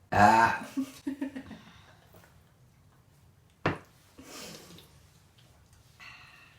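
A woman's loud throat sound from eating too fast, about half a second long, followed by a few smaller throat noises. There is one sharp click a few seconds later.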